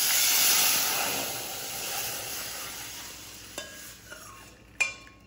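Hot ghee tempering with mustard seeds and red chili powder sizzling loudly as the yogurt and gram-flour mix is poured into the stainless steel saucepan. The sizzle is loudest right away and dies down over about four seconds, with a couple of light clicks near the end.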